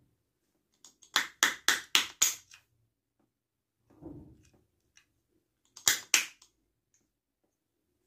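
Five quick sharp taps, a short rustle, then two more taps: a thin metal tool knocking and prying at the white plastic bearing housing of a vacuum cleaner motor to free the broken bearing.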